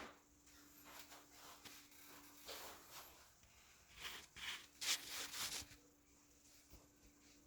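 Quiet scraping and rubbing strokes of a hand tool on a surface, a run of short strokes that grows loudest about four to five and a half seconds in.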